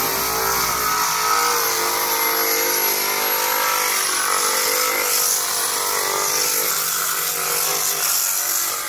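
Handheld electric sander running steadily under load against pool plaster, sanding down the peeling plaster.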